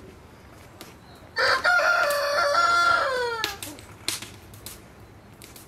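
A rooster crows once, a loud call of about two seconds that holds its pitch and then drops away at the end.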